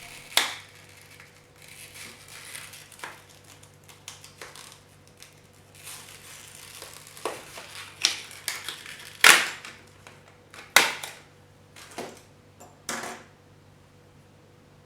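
Small sharp clicks and handling rattles from a laptop RAM slot: the SO-DIMM module's side retaining levers being pulled open and the module and its metal cover handled. The clicks come irregularly, the two loudest a little past the middle.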